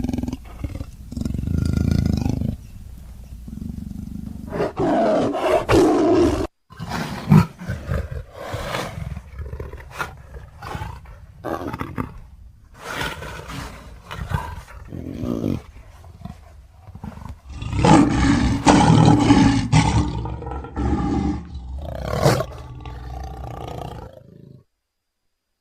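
Big-cat roars, snarls and growls from leopard, tiger and lion recordings, the creature sound effects for the leopard Sabor: a string of separate calls with short breaks, the longest and loudest about three-quarters of the way through, stopping shortly before the end.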